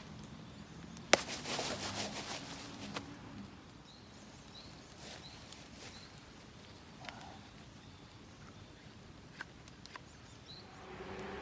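A sharp knock about a second in, then about two seconds of rustling and scraping in dry leaves as a large koi carp is struck and handled on the ground with a knife. Short, high bird chirps come a few times around the middle and once near the end.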